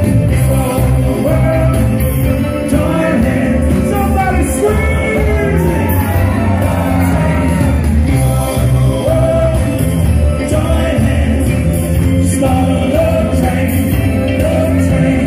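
Loud live band music with a steady beat and a man singing into a microphone, with shouts and whoops from the crowd, most of them around four to six seconds in.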